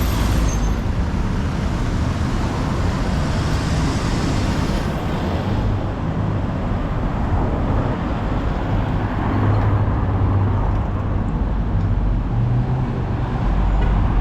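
Steady road and traffic noise from moving along a street, a dense low rumble with a low hum coming and going in the second half.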